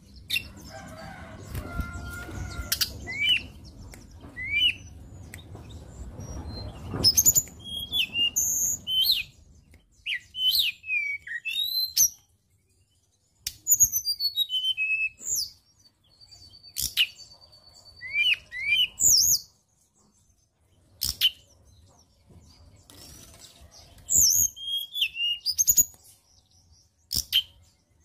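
Hill blue flycatcher singing: phrases of quick, clear whistled notes, many sliding down in pitch, broken by short pauses. A low rumble of background noise lies under the first seven seconds or so.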